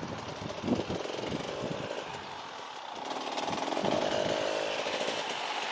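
KTM 300 XC-W TPI's fuel-injected two-stroke engine running at low revs, with uneven putts at first, then a steadier note that builds from about halfway in.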